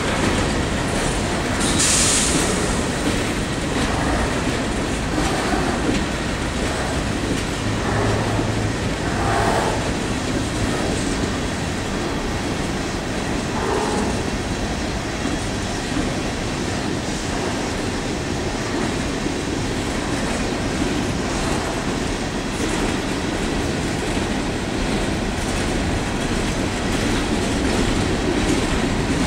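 Freight train of empty steel coal hopper cars rolling past close by, steel wheels running steadily over the rails, with a brief high screech about two seconds in.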